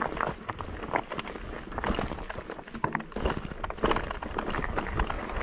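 Electric mountain bike rattling and clattering over a rough, rocky trail: a fast, irregular run of knocks and crunches from the tyres on stones and the bike's frame and drivetrain shaking.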